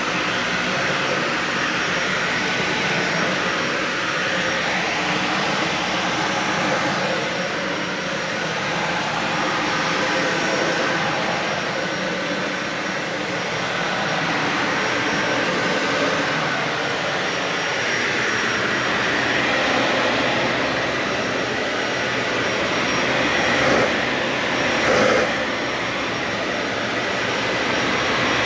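Dyson Ball Animal 3 upright vacuum cleaner running steadily on carpet, its sound swelling and easing every few seconds, with two brief louder bumps near the end.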